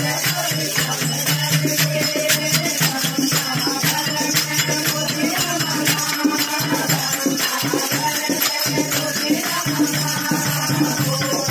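Group of women singing a Hindu devotional kirtan together, with steady rhythmic hand clapping and a rattling percussion keeping the beat.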